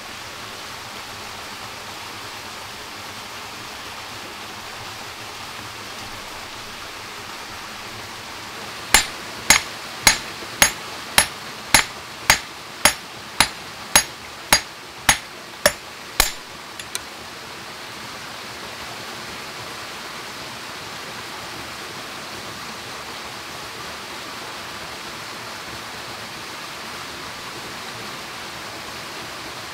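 About fourteen sharp metal strikes, just under two a second for about seven seconds, as the head of a small hatchet hammers a thin metal rod against a stone. Two faint taps follow, over the steady rush of a stream.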